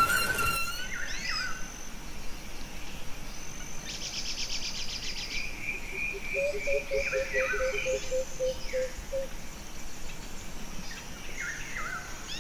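Several birds calling over a steady outdoor hiss: short rising and falling chirps, a fast high trill about four seconds in, then runs of evenly spaced repeated notes lasting a few seconds.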